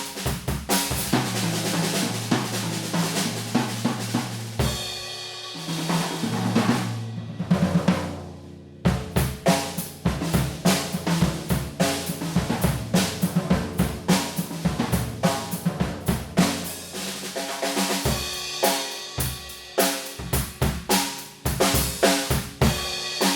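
Yamaha Stage Custom Birch drum kit with Paiste PST 8 cymbals played in a continuous groove with fills: snare, bass drum, toms, hi-hat and cymbals. The strikes thin out briefly about seven to eight seconds in, then the playing picks up again.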